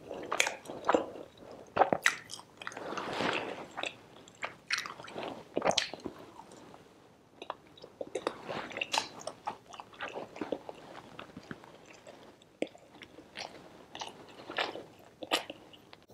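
Close-miked eating sounds of a person chewing a piece of chicken curry: irregular wet smacking, clicks and soft crunches of biting and chewing, easing off briefly a couple of times.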